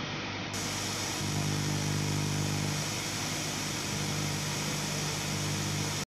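An engine running steadily, a low hum under a loud rushing hiss, that starts and stops abruptly.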